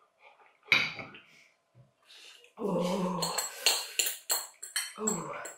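Mouth noises of someone eating very spicy ramen: a short voiced groan a little past halfway, then a quick run of sharp slurps as broth is drunk straight from a glass bowl, with a light clink of glassware.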